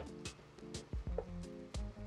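Background music with a steady beat of about two beats a second, with held tones over it.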